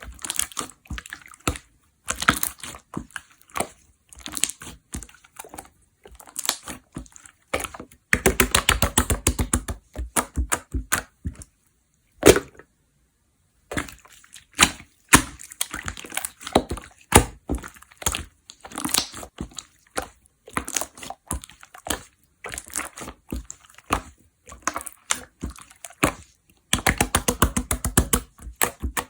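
Slime being squeezed, stretched and pressed by hand, making sticky clicks and pops, with two long runs of rapid popping clicks, about a third of the way in and near the end.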